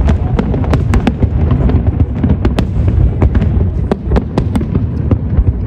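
Fireworks going off continuously: many sharp cracks and bangs, several a second, over a constant deep rumble of shell bursts.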